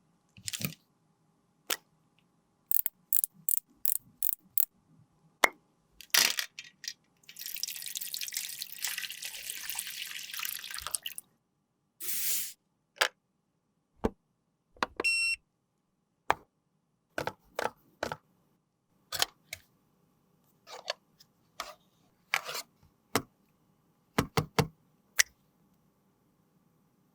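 Close-up handling of makeup containers and tools: scattered sharp clicks and taps, with a hiss lasting about four seconds near the middle and a brief high tone a little later.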